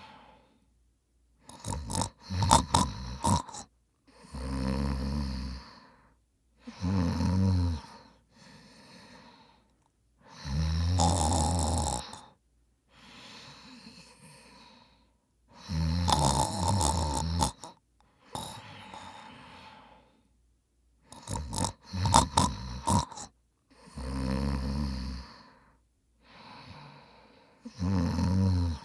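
A man snoring heavily. Loud snores come in pairs, each pair followed by a quieter breath. Some of the snores have a rattling, clicking edge.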